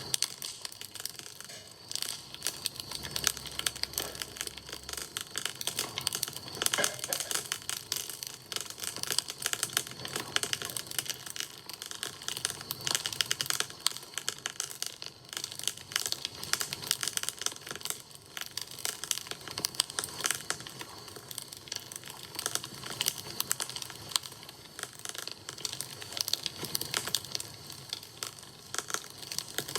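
Wood campfire burning, with dense, irregular crackling and sharp snaps throughout.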